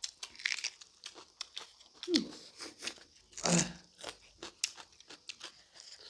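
Close-up chewing and crunching of smoked pork and rice eaten by hand: a run of quick wet crunches and mouth clicks, with one louder, longer sound about three and a half seconds in.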